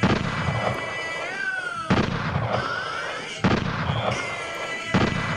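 Gunshot sound effects: four loud sudden bangs, one and a half to two seconds apart, each trailing off, with a gliding pitched tone between them.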